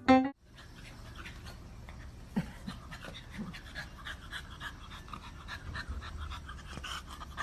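A dog panting rapidly and steadily.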